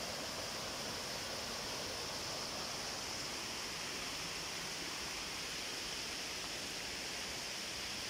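Steady rushing of a small stream running over rocks, an even hiss with no breaks.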